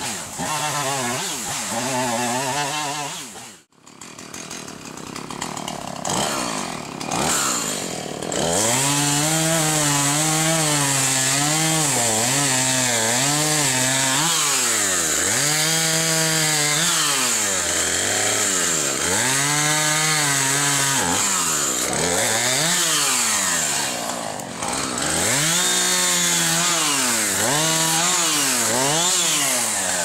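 Husqvarna two-stroke chainsaw cutting through the limbs of a downed tree. It revs up and drops back again and again, roughly every two seconds, with a brief break about four seconds in.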